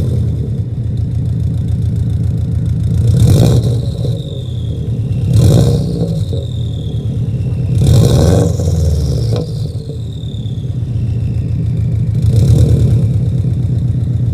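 Turbocharged 2.0-litre flat-four of a 2002 Subaru WRX with an aftermarket exhaust, idling and blipped four times, with a high whistle falling away after each rev, heard from the front at the open engine bay.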